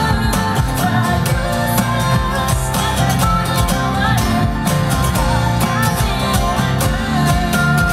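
Gibson Hummingbird acoustic guitar, capoed, strummed with a pick in a fast, steady chord rhythm.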